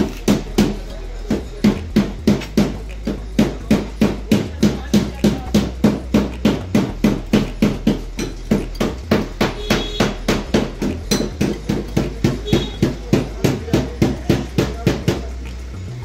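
Hydraulic floor jack being pumped by its long steel handle, giving a steady run of metal clanks at about three a second as the car is raised.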